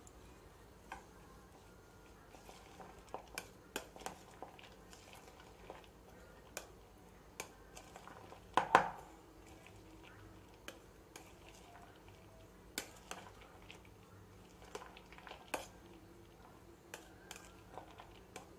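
A steel spoon stirring grated carrot and chopped onion in a plastic bowl: irregular light clicks and scrapes of the spoon against the bowl, with the loudest knock about nine seconds in.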